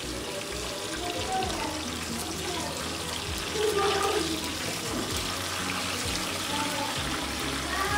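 Chicken pieces sizzling steadily as they fry in hot oil in a nonstick pan, turned over now and then with a slotted spatula.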